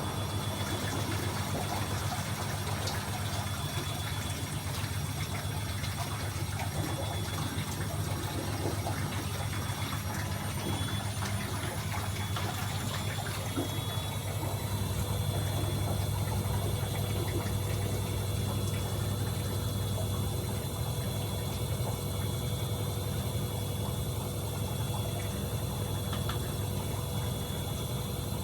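AEG Öko-Lavamat 74780 washing machine running, with a steady low pump hum and water. Its motor whine rises in pitch about ten seconds in and holds steady from about fourteen seconds, as the drum speeds up.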